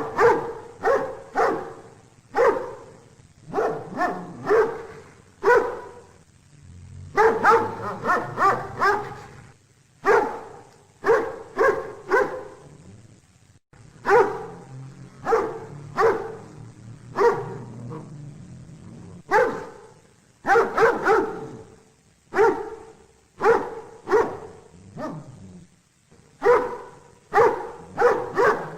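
Dog barking over and over, in quick runs of several barks separated by brief pauses.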